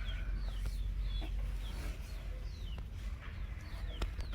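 Repeated short, high chirps from a small animal, each falling in pitch, about two a second, over a steady low rumble.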